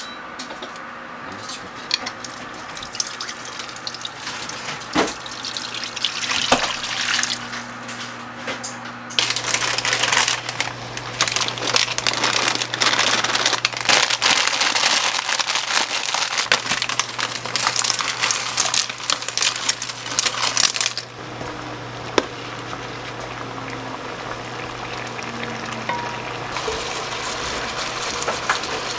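Cooking in a pan on a stovetop: garlic crackling in oil, then a loud, dense hiss and crackle of water boiling in the pan from about nine seconds in, which drops to a quieter simmer about twenty-one seconds in. A steady low hum runs under the second half.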